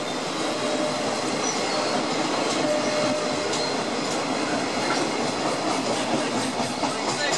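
Container wagons of a freight train rolling past at speed: a steady rumble of steel wheels on rail, with scattered clicks.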